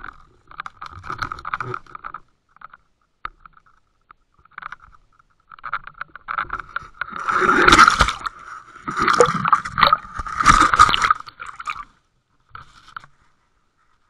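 Scraping and rubbing noises on the housing of a Water Wolf UW 2.0 underwater fishing camera, coming in irregular bursts with short gaps, the loudest about seven to eleven seconds in.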